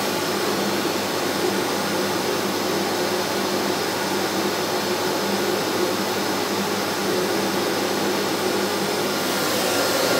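Electrolux Silent Performer Cyclone bagless vacuum cleaner running steadily at its maximum power setting: an even rush of air with a steady low motor hum. At this setting it measures about 77 dB at 1.5 m.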